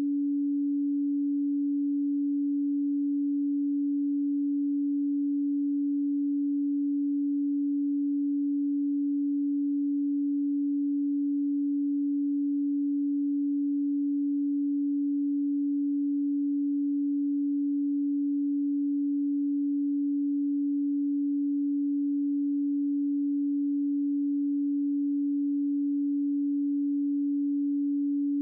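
A pure 285 Hz sine tone, held steady and unchanging.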